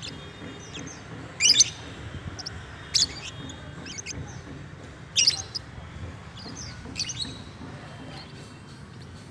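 A dozing bird making its 'ngekek' chatter: short, high-pitched bursts of calls about every one and a half to two seconds, with fainter chirps between.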